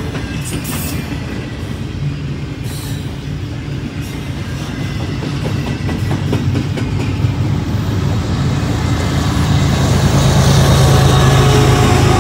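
Freight train rolling past close by, its steel wheels clicking and rumbling over the rails. The sound grows louder in the second half, when tall enclosed autorack car-carrier cars follow the double-stack container cars.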